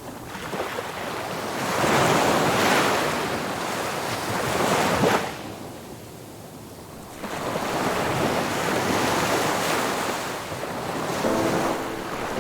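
Ocean waves breaking and washing in, swelling twice with a quieter lull between them. Soft music with held notes comes in near the end.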